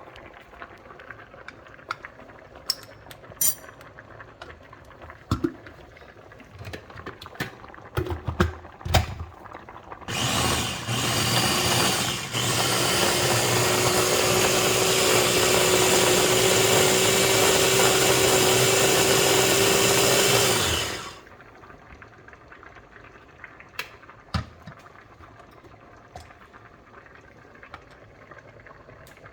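Light clicks and knocks for about ten seconds, then an electric blender grinding pesto with a steady motor hum. It starts with a short burst, pauses briefly, then runs steadily for about nine seconds and cuts off suddenly.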